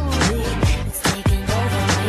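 Background music with a steady beat: regular drum hits over a held bass line, with a vocal line on top.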